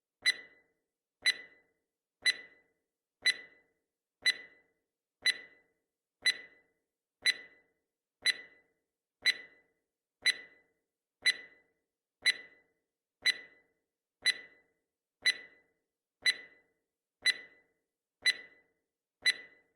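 Countdown timer's clock-tick sound effect: one short, sharp tick every second, evenly spaced, with dead silence between ticks.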